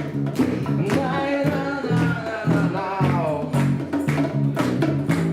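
A group of voices singing a song together over a strummed guitar, the sung melody sliding up and down between phrases.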